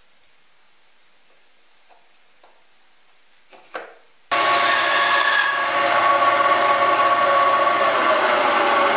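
A few soft handling clicks and a brief rustle, then about four seconds in a bandsaw comes in loud and steady, running and cutting wood.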